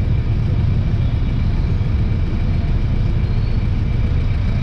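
Motorcycle and scooter engines idling in stopped traffic: a steady low rumble.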